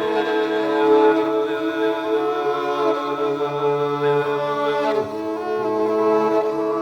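Background music of long held notes that change pitch a few times.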